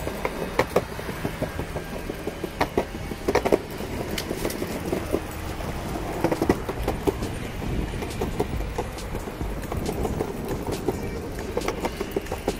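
Footsteps and small irregular clicks of a person and a leashed dog walking together, over a steady low rumble.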